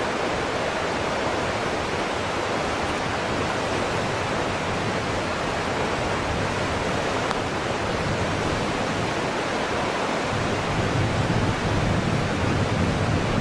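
Steady loud rushing noise, spread evenly from low to high with a fluctuating rumble underneath and no distinct events.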